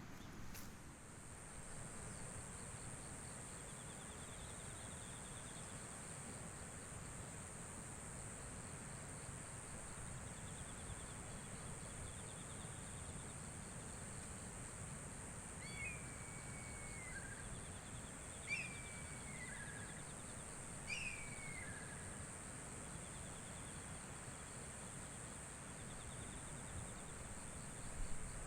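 Faint outdoor ambience: a steady high-pitched insect drone and soft pulsing insect chirps over a low hiss. A bird gives three short, falling calls a little past the middle.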